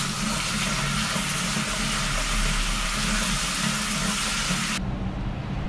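Water running from a newly installed wall-mounted mixer tap during a leak test, shut off abruptly near the end, over a steady low rumble.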